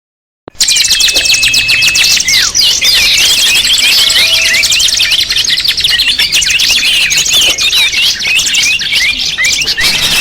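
Bird-lure (pikat) recording of many small birds calling at once: a loud, dense, busy chorus of rapid high chirps, trills and wavering whistles, starting about half a second in.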